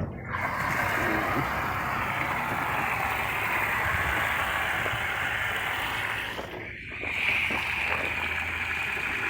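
Steady hissing rush of spraying liquid that starts suddenly and breaks off for a moment about seven seconds in, with a low hum underneath.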